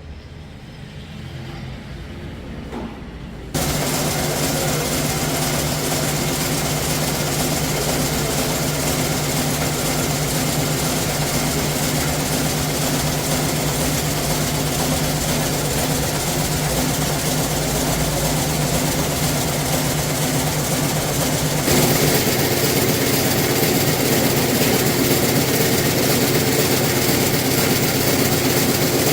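Zipper-making factory machinery running steadily with a constant hum, cutting in suddenly a few seconds in and changing abruptly to a different machine sound about three quarters of the way through.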